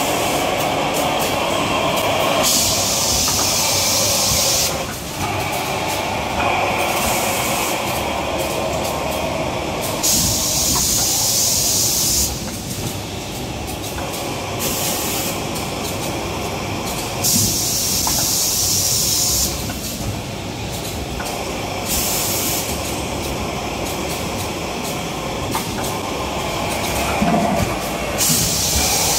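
Tissue-roll production and packing machinery running with a steady mechanical din, broken several times by bursts of hissing that last about two seconds each.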